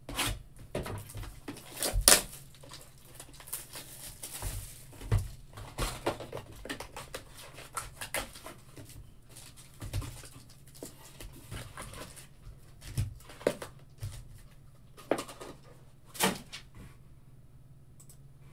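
Foil trading card packs handled and stacked on a table: irregular crinkling of the wrappers with taps and knocks as the packs are set down. There are sharper knocks about 2 seconds in and again near the end.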